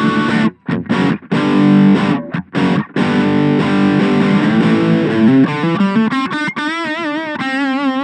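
Electric guitar with a bridge humbucker played through a Boss Katana Mini 7-watt amp on its crunch channel: distorted power chords, chopped short with brief stops in the first few seconds, then let ring. Near the end a held chord wobbles with wide vibrato.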